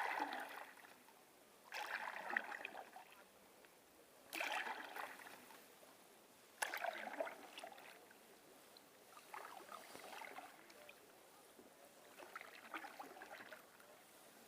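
Water splashing and sloshing in repeated surges, one every two to three seconds, each starting suddenly and fading away.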